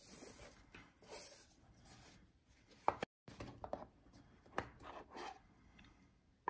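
A fabric ribbon being pulled loose from a small cardboard box, then the box's lid being handled and lifted off: faint rubbing and rustling with a few light taps. A short sharp click comes about three seconds in, followed by a brief gap of dead silence.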